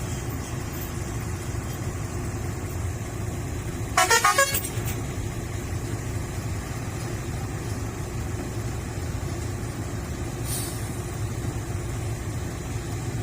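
A heavy diesel engine runs steadily, and about four seconds in a vehicle horn gives a quick run of about four short toots.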